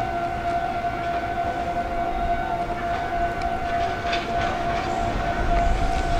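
A steady, unchanging high electrical whine at a railway platform, with the low rumble of an approaching train building near the end.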